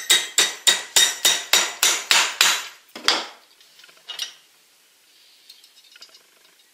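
Hammer striking a thin steel rod clamped in a bench vise, bending its end into an L: a steady run of ringing metal-on-metal blows, about three a second. The blows stop about three seconds in, after one last strike, and faint handling of the rod follows.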